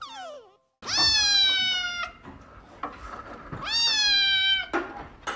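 Grey-and-white kitten meowing: two long, loud meows, each over a second, rising sharply at the start and sagging a little at the end. Just before them, right at the start, comes a short falling glide.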